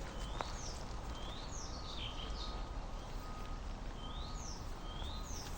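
A songbird chirping repeatedly, short high sweeping notes coming in small groups, over a steady low rumble of outdoor background noise.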